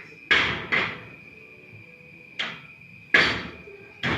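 Five sharp hits, irregularly spaced (a quick pair, then three single ones), each dying away quickly, over a faint steady high-pitched whine.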